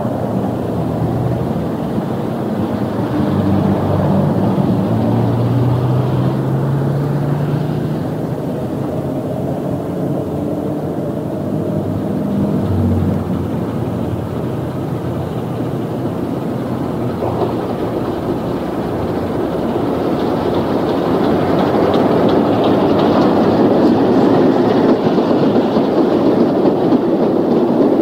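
Steam-hauled train running past: a steady rumble with wheels clicking over the rail joints, growing louder over the last several seconds as the train draws level.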